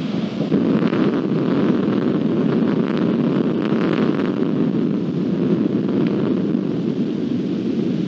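Rolling thunder from a close lightning strike: a deep rumble that swells in the first second and rolls on loud and unbroken.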